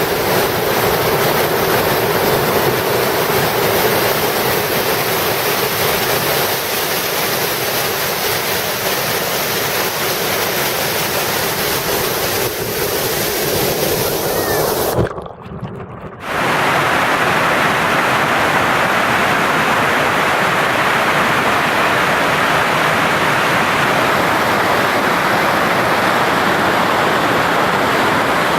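Waterfalls rushing with steady water noise. About halfway through it drops out for about a second and comes back brighter and hissier, as from a different fall.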